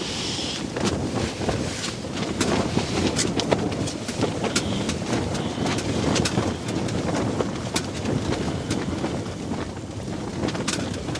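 Wind buffeting a tent and the microphone, a steady rush with many small snaps and rattles of the tent fabric.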